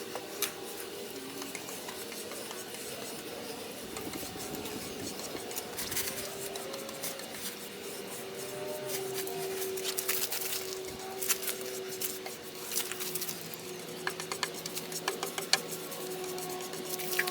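Soft rubbing strokes of an applicator spreading clear finish over a wooden tabletop, with scattered light clicks and a faint steady tone underneath.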